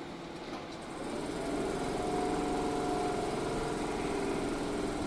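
Shizuoka Railway 1000 series electric train moving off slowly, its motors humming. The hum of several tones comes in about a second in and holds, rising slightly in pitch.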